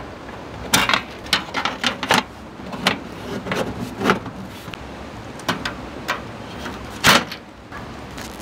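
Parts of a lightweight camping table being assembled, clicking and knocking together in irregular handling sounds, with one louder knock about seven seconds in.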